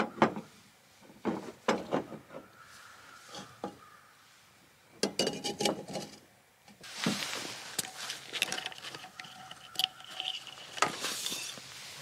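Camp cookware clinking and clattering: a run of separate knocks and clicks, with a short stretch of hiss about two thirds of the way in.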